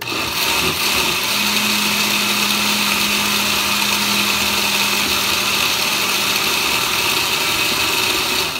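Countertop blender with a glass jar running at full speed, grinding crab pieces in liquid. It starts abruptly, holds one steady whirring pitch with a low hum under it, and winds down at the end.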